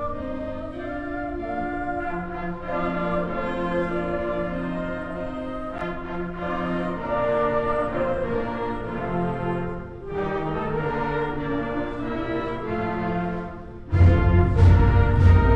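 Orchestral music with brass playing sustained chords. About two seconds before the end, heavy percussion comes in and the music gets louder.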